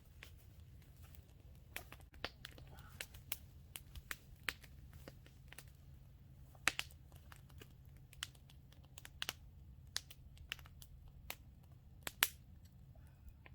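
Scattered, irregular sharp clicks and crackles over a low steady rumble, the loudest pops about seven and twelve seconds in.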